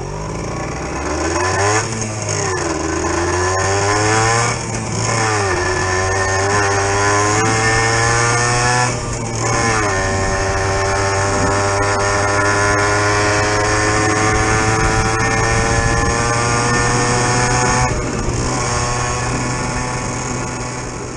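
Suzuki PV moped's 50 cc two-stroke single-cylinder engine accelerating through the gears. Its pitch climbs and drops back at shifts about two, four and a half and nine seconds in, then rises steadily in a higher gear before easing off near the end.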